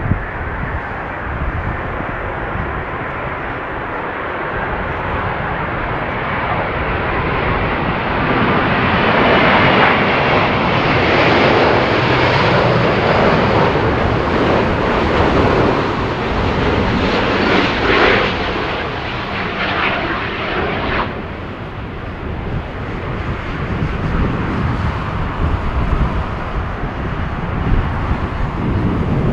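Airbus A350-941's turbofan engines on final approach: a jet roar that grows louder as the airliner passes low overhead. The high part drops away abruptly about two-thirds of the way through, leaving a lower rumble with wind buffeting underneath.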